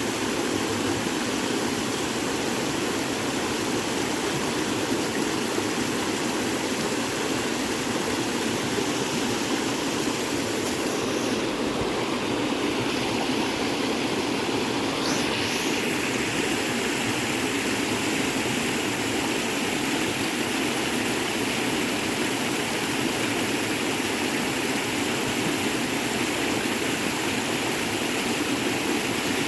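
Creek water rushing steadily, running after a good rain; the hiss turns slightly brighter about halfway through.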